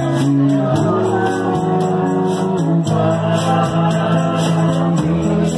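Acoustic guitar strummed in a steady rhythm, with a man singing along through a microphone.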